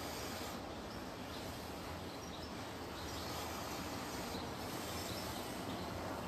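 Steady outdoor background noise, with faint short high chirps now and then.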